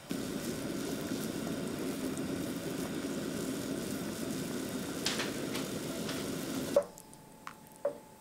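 Water at a rolling boil bubbling in a cast-iron pan, with a few light knocks of a wooden spoon among the tomatoes. The bubbling cuts off abruptly near the end, leaving a faint steady tone and a couple of small clicks.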